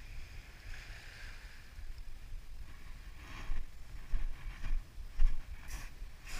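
Wind rumbling on a body-worn camera's microphone, with several sharp crunches and knocks in the second half as footsteps cross a pebble beach.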